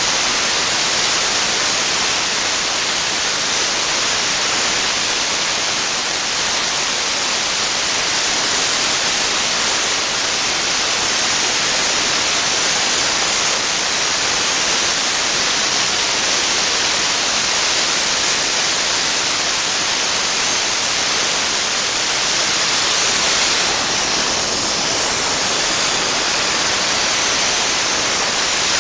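Dry ice blaster nozzle running, a loud, steady hiss of compressed air and dry ice pellets blasting the engine bay's plastic covers and hoses. It eases slightly for a moment near the end.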